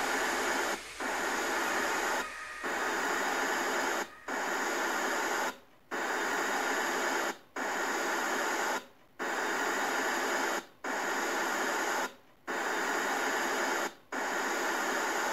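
Electronic static hiss, like a detuned TV or radio, cut into about ten even bursts of roughly a second and a half with short gaps between them: a glitch sound effect.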